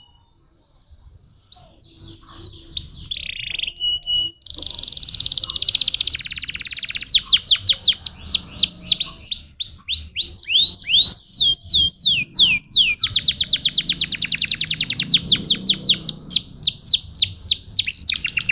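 Canary singing a long, varied song, starting about two seconds in: fast rattling trills alternating with runs of quick falling notes.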